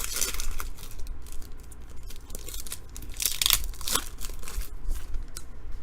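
A trading-card pack wrapper being torn open and crinkled, in several short crinkly bursts, the loudest near the start and around three to four seconds in.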